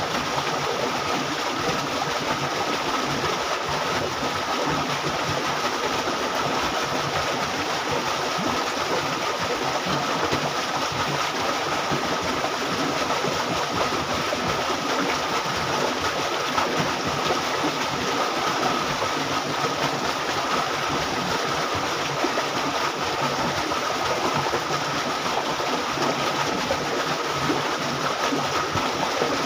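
Steady rushing of water flowing along a concrete irrigation canal, with a faint steady high tone underneath.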